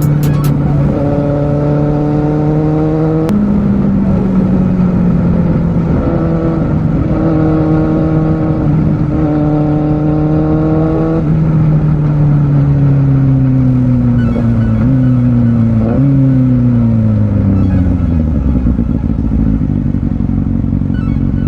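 Kawasaki Z750R inline-four engine heard on board while riding: it runs at steady revs, steps up in pitch a few seconds in, then winds down steadily as the bike slows. Two quick rises in pitch late on mark downshifts, before the engine settles at low revs near the end.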